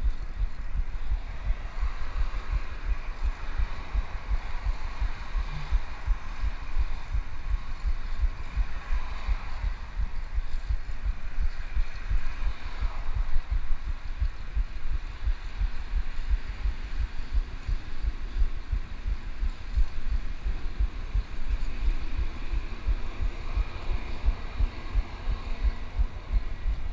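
Low, irregular rumbling and buffeting from wind and road vibration on a bicycle-mounted action camera's microphone while riding, with a faint higher hiss over it.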